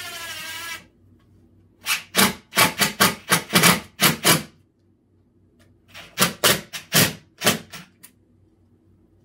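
Cordless impact driver driving wood screws into two stacked boards: a short run of the motor whine ending under a second in, then two clusters of rapid short bursts, about two seconds in and again about six seconds in, as the trigger is feathered to pull the boards together without driving the screws too deep.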